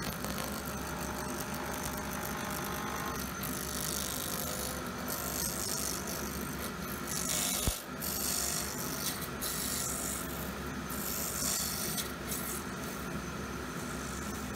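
Lathe spinning an Alumilite resin blank with a hardened CA-glue end while a turning tool cuts it: a steady motor hum under a scraping hiss of the cut that comes and goes from about four seconds in, with one sharp knock about eight seconds in.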